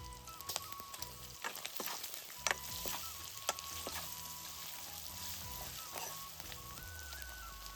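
Pork frying and sizzling in a pan, with scattered sharp clicks of a utensil stirring against the pan.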